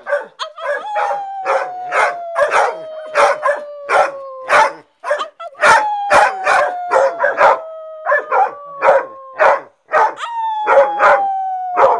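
Dogs howling and barking together: three long howls, each sliding slowly down in pitch over about four seconds, starting about a second in, near the middle and near the end, over a steady run of short barks about twice a second.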